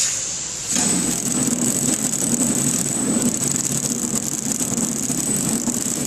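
Corewamp KT-250D flow-wrapping packing machine starting up about a second in and then running steadily: a mechanical rumble with a thin high whine. It is being run from its remote control while its film-cutting position is set.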